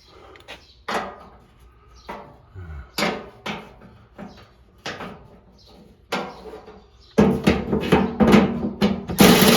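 Hand tools and metal parts knocking and clinking a few times during disassembly of a lawn tractor's front end, then a denser, louder spell of clattering. A steady power-tool whir starts just before the end.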